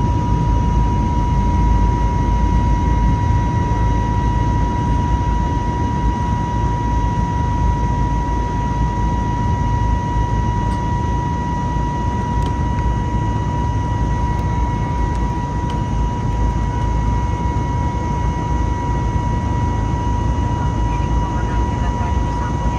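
Airbus A320neo in flight: a steady low engine and airflow rumble with a steady high whine over it.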